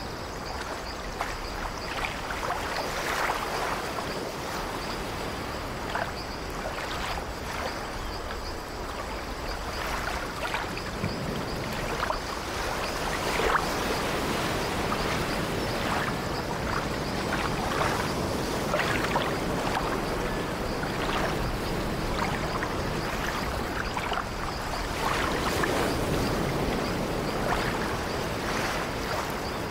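Ocean surf: a continuous rush of water with frequent short splashes as waves break and wash over the shore and rocks.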